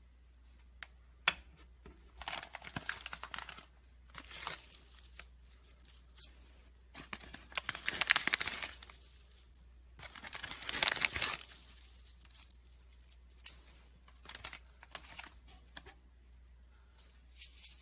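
Slime squished and pulled apart by hand, making crackly, tearing sounds in several bursts of a second or two, with short pauses between them.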